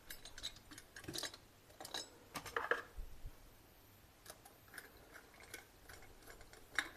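Faint, scattered small clicks and scrapes from fitting a wire end into the switch terminal on the back of a plastic 16 A power plug.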